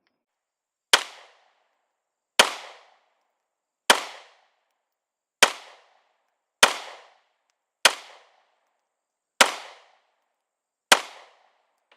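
Eight 9mm pistol shots from a Glock 19 Gen 5, fired at a steady slow-fire pace of about one every second and a half, each a sharp crack with a short ring-out. They are the last rounds of the string, ending with the magazine emptied.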